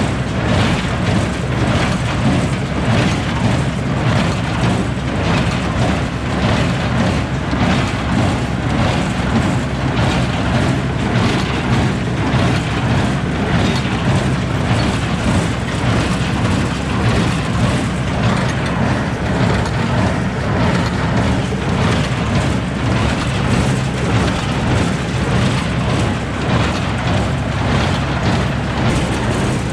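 New Holland 310 small square baler running, baling hay under power: a steady machine hum with a regular, even knocking of the baler's working strokes.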